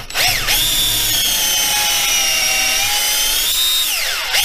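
Cordless drill boring a pilot hole into the centre of a spalted beech bowl blank. The motor whine rises in pitch as it spins up, holds steady, and drops near the end as the drill slows.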